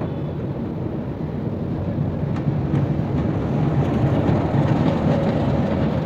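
Diesel locomotive running as it approaches, its low rumble growing gradually louder, with a couple of faint clicks about two and a half seconds in.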